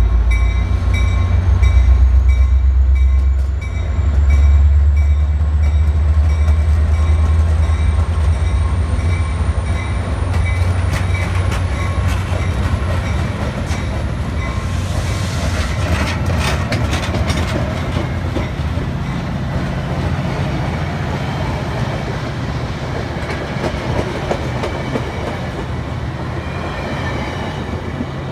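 Metra commuter train passing close by: its diesel locomotive's engine is loud in the first few seconds, then the stainless-steel bilevel coaches roll past, wheels clacking over rail joints, busiest about halfway through, with the sound slowly fading. A grade-crossing bell rings over the first few seconds.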